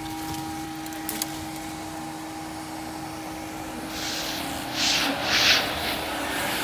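Bee vacuum running with a steady motor hum and hiss of suction, with a few louder rushes of air about four to five and a half seconds in.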